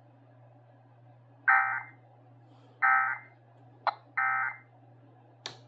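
Three short bursts of Emergency Alert System SAME digital data, the end-of-message code that closes an alert, each a harsh warbling data chirp about half a second long and a little over a second apart. A couple of sharp clicks follow, over a faint steady hum.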